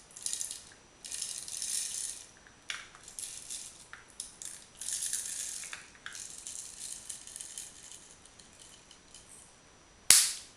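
Peppercorns poured into a plastic Rubik's Cube pepper mill, rattling in irregular bursts that thin out after about eight seconds. One sharp knock comes just before the end.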